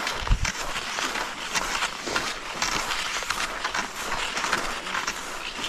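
Cross-country skis swishing and scraping along a groomed track, with the crunch of pole plants, in a repeated stride rhythm. A low bump sounds just after the start.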